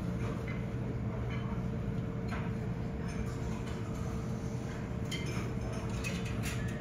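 Jet airliner engines heard at a distance: a steady low rumble with a faint, even whine over it, and a few small clinks.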